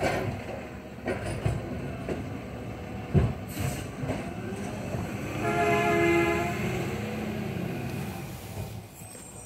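Mack LR garbage truck with a McNeilus ZR automated side-loader body working at the curb: the engine runs under a string of knocks and clanks, the loudest about three seconds in, then a high whine from the hydraulics for a second or two around the middle.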